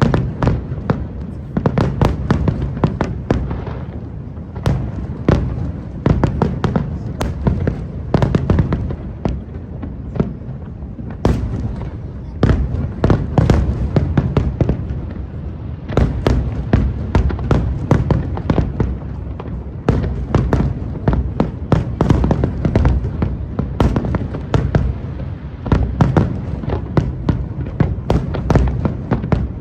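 Fireworks display: a rapid, continuous string of sharp bangs and crackles over a steady low rumble.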